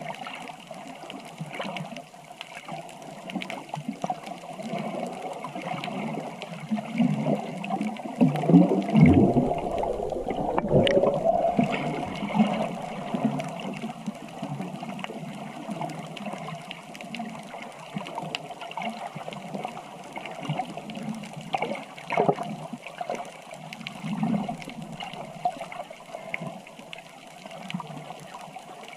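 Water sloshing and gurgling, with a louder surge of bubbling water about eight to eleven seconds in.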